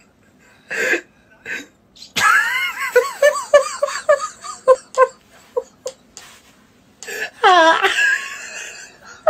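A person laughing hard, in a quick run of short "ha" pulses about three a second, with a high squeal falling in pitch near the end.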